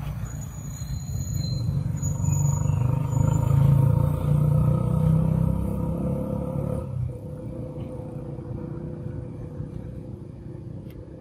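Low engine rumble of a passing motor vehicle, swelling to its loudest a few seconds in and fading after about seven seconds.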